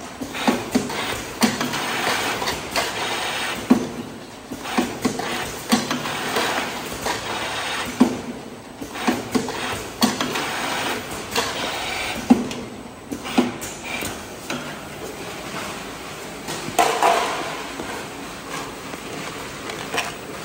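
Automatic bottle capping machine running: a steady mechanical noise from the conveyor and clamp-belt motors, with short plastic-and-metal clacks and knocks roughly every second as the capping head and clamps handle screw-capped plastic jars.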